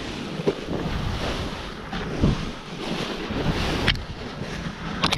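Lib Tech Orca snowboard riding through deep powder snow: a continuous rush of snow spraying off the board, with wind on the microphone. A couple of sharp knocks stand out, one near the end.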